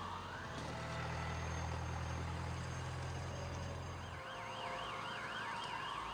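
Emergency-vehicle sirens: a slow rising-and-falling wail, joined about four seconds in by a faster warbling siren. A low steady engine hum sounds underneath and stops about four seconds in.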